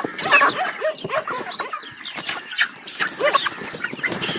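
A flock of broiler chickens squawking and clucking together, many short calls overlapping.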